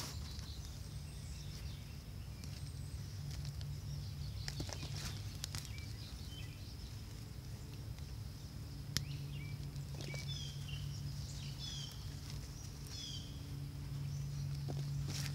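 Gloved hand digging and raking through loose potting soil, a rustling and scraping with a few sharper scratches. Birds chirp briefly in the background about two-thirds of the way through, over a steady low hum.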